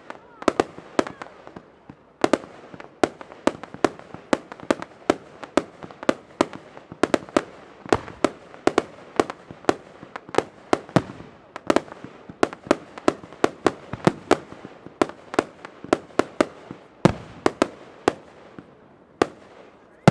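Fireworks display: aerial shells bursting in a rapid string of sharp bangs, about two a second, with echo hanging between them. One deeper, heavier bang comes near the end.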